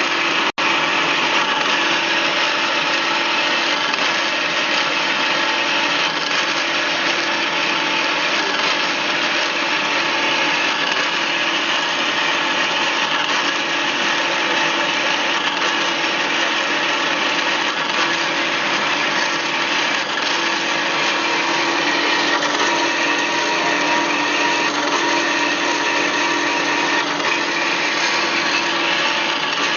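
BOMAR metal-cutting band saw running steadily, a loud even machine noise with a steady hum and hiss, cut off for an instant about half a second in.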